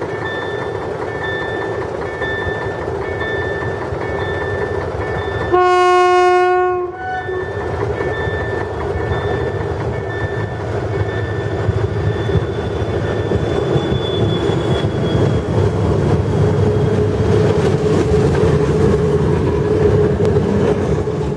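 SU42 diesel locomotive hauling a passenger train approaches and passes close by, its engine and wheel clatter growing louder toward the end. It sounds one horn blast of just over a second about six seconds in. A level-crossing warning signal beeps quickly and regularly through the first half.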